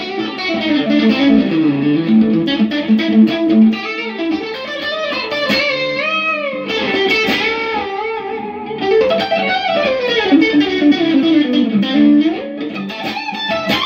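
Clean-toned electric guitar through an amp, played as single-note licks with string bends. The sound cuts off suddenly at the very end, where the amp blows.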